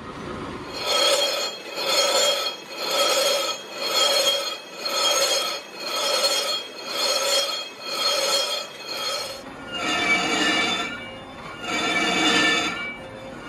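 Rhythmic rasping strokes on ringing metal, about three every two seconds, slowing to about one a second near the end.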